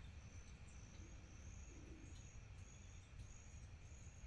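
Faint crickets chirping: a high, thin tone in short repeated pulses.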